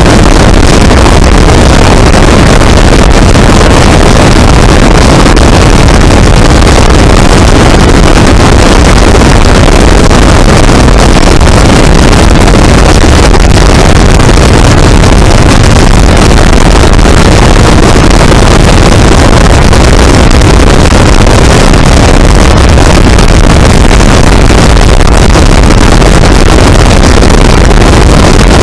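Biplane in cruise flight: its engine and the slipstream make a steady, very loud noise with no change in pitch, heard from a camera on the wing struts, with wind buffeting the microphone.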